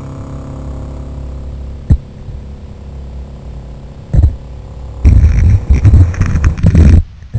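Electric drive motor of an RC model submarine heard underwater: a steady hum, broken by two knocks, then a loud rumbling, churning stretch about five seconds in that cuts off abruptly.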